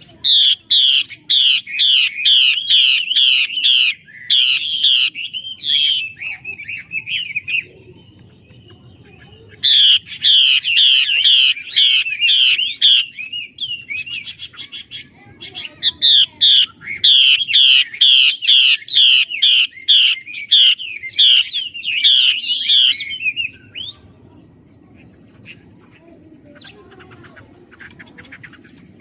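Female hwamei (Chinese melodious laughingthrush) singing: loud bouts of fast, repeated rising notes, about three a second. There are two short breaks, and the song goes faint near the end.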